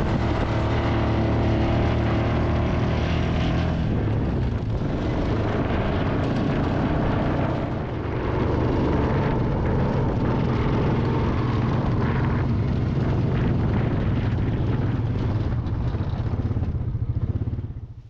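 ATV engine running steadily while riding across open ground, with wind buffeting the microphone.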